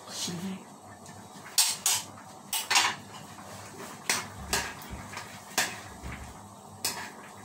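Metal kitchen utensils clinking and scraping against a cutting board and a metal pan: about nine sharp, irregular clinks as chopped chilli is scraped into the pan and stirred.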